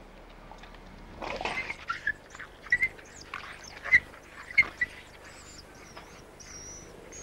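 Gray wolves squabbling over meat: a young female wolf snarls and gives several sharp yelps and squeals beneath an older male that is feeding. These are submissive protests as the dominant male keeps the food.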